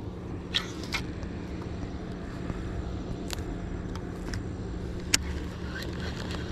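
Steady outdoor background noise with a constant low hum, broken by a few brief sharp clicks from a baitcasting rod and reel being handled.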